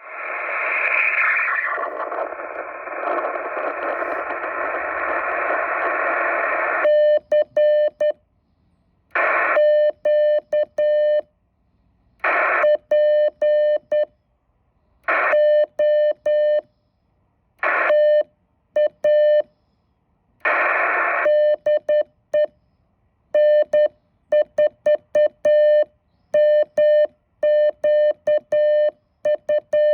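Ham radio transceiver audio: about seven seconds of receiver hiss, then a steady Morse code (CW) tone keyed on and off in dots and dashes. The groups of dots and dashes are separated by short bursts of hiss and brief silences.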